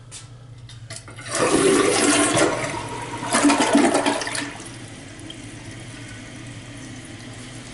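American Standard Champion 4 toilet flushing: a few light clicks, then a loud rush of water through the bowl about a second in that surges a second time, settling after about four and a half seconds into the steady hiss of the tank refilling.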